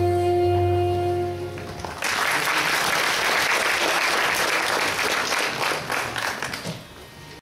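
A live Indian-classical-style ensemble ends a song on a long held note, and about two seconds in the audience breaks into applause that lasts about five seconds and fades near the end.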